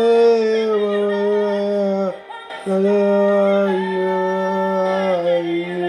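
A young man singing long held notes with no accompaniment. There is a short breath about two seconds in, and the second phrase steps down slightly in pitch.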